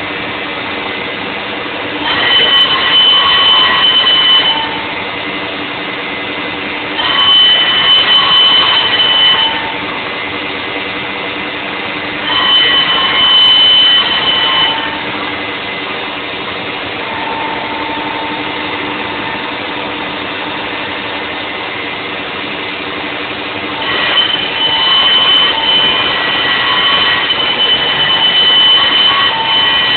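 CNC router spindle whining steadily as it mills the pockets of a Stratocaster guitar body. The sound swells louder and harsher in stretches of a few seconds, four times, as the bit cuts, and settles back to a steadier whine between passes.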